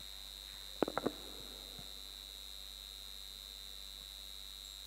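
Steady high-pitched electrical whine over a faint mains hum from the church sound system, with a quick run of three or four clicks about a second in.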